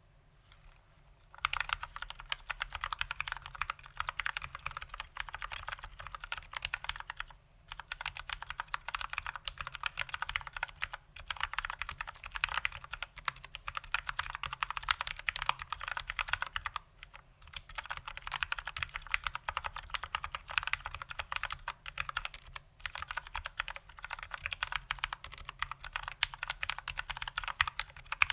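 Fast typing on a GMMK mechanical keyboard with Gateron Brown tactile switches lubed with Krytox 205g0, starting about a second in and broken by a few brief pauses.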